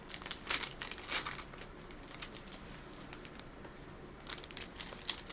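Crinkling of a foil Pokémon booster pack wrapper being handled, in short crackly bursts about half a second and a second in and again near the end, quieter in between.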